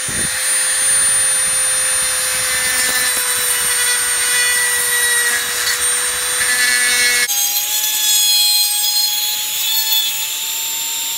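Dremel rotary tool with a cutting bit grinding the leftover excess out of a shaving brush handle's knot socket: a steady high motor whine with a gritty grinding hiss. About seven seconds in the sound cuts abruptly to a higher motor whine that creeps slightly upward.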